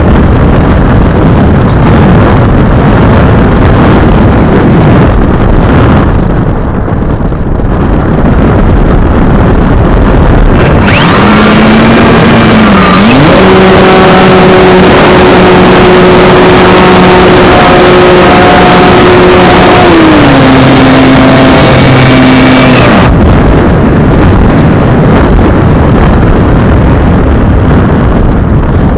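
Loud steady rushing noise from airflow on the onboard microphone of a model plane in flight. From about a third of the way in to about three quarters, the whine of its brushless electric motor rises in, holds, and steps up and down in pitch with the throttle.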